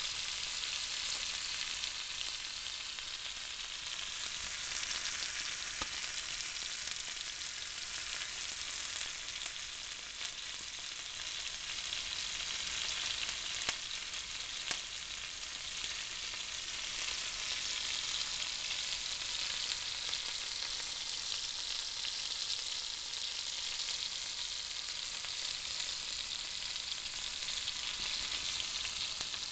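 Angus beef steaks sizzling in a 10-inch cast iron grill pan: a steady frying hiss with a few faint pops.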